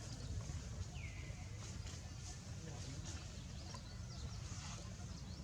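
Steady low background rumble, with one short high animal call, falling in pitch, about a second in.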